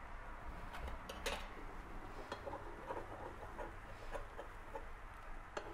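Quiet handling sounds of a small non-stick frying pan with a pancake on a glass-top induction hob: a few faint clicks and light taps, the clearest about a second and two seconds in.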